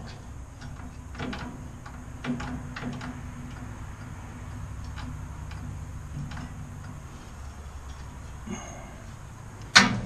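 Scattered light clicks and taps from handling a steel tow bar, over a low steady hum, then one sharp knock near the end as the bar is lowered.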